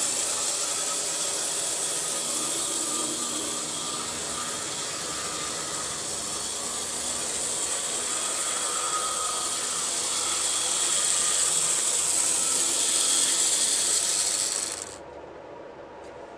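Motor and gear train of a Graham Farish N-gauge Class 101 DMU power car whirring steadily as the model runs around the track on its rebuilt bogey with new gears. The sound cuts off abruptly near the end.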